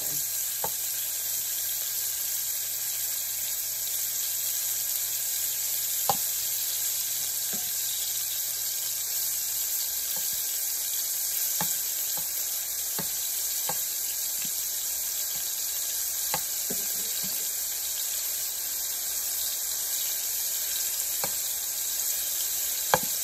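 Cubed, seasoned steak frying in hot oil in a skillet, stirred with a slotted metal spatula: a steady sizzle, with a few sharp clicks now and then.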